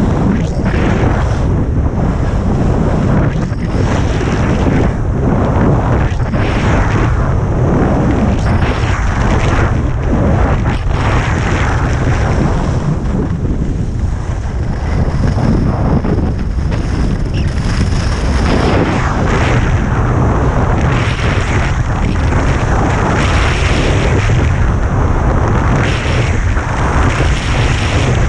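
Wind buffeting the microphone of a helmet- or body-mounted action camera as a skier descends a groomed piste, with skis hissing and scraping over the snow in rhythmic turns roughly every second and a half.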